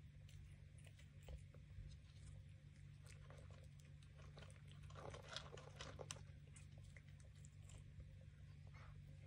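Faint clicks and crunches of a cat chewing food from a bowl, busiest about five seconds in, over a low steady hum.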